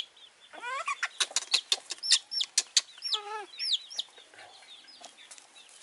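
Baby chick peeping over and over in distress after falling into water: short, high, downward-slurring peeps, with a lower, longer call about three seconds in.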